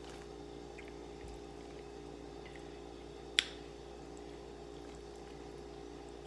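Quiet eating sounds: faint chewing and mouth ticks while she eats baked chicken, over a steady low hum. One sharp click about three and a half seconds in.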